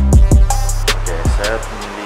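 Background music with drum hits over a deep bass line, dying away near the end.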